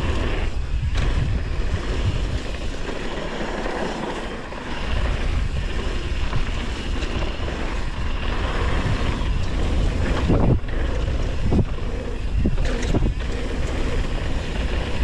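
Wind rushing over the microphone and tyres rumbling over a dirt trail as a mountain bike descends at speed, with three sharp knocks in the second half.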